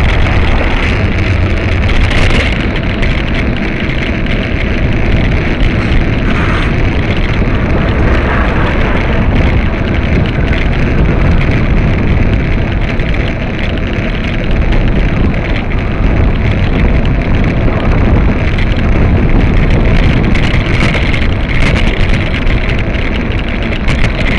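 Steady wind rumble on the microphone of a camera on a moving bicycle, mixed with the running engines of slow traffic alongside.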